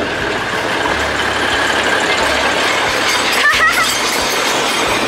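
Red narrow-gauge diesel locomotive of the Alishan Forest Railway passing close by with its engine running steadily.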